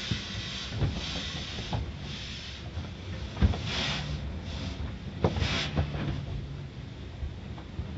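Automatic car wash heard from inside the car: spray hissing against the windshield in a steady wash with a couple of louder bursts, and soft cloth brushes slapping and scrubbing over the glass with several thumps, the loudest about halfway through. A low machine hum runs under the second half.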